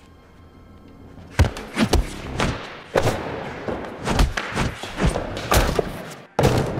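A rapid string of movie-style punch and kick hit sounds, about a dozen sharp impacts starting about a second and a half in, with a short break and then one more loud hit near the end.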